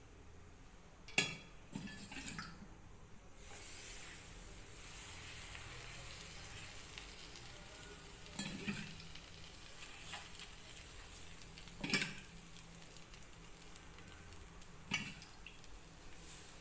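Water sizzling on a hot tava as it is spread by hand over the top of a jowar bhakri, the usual step in cooking bhakri. The hiss builds up a few seconds in, with a few short knocks along the way.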